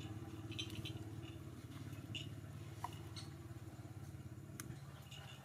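An engine running steadily in the background, a low pulsing hum that fades away near the end, with faint small clicks and a brief chirp over it.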